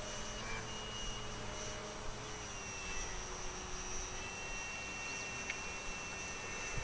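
Electric motor and propeller of a radio-controlled TopFlite Cessna 182 Skylane model whining steadily in flight, the pitch sliding slowly lower.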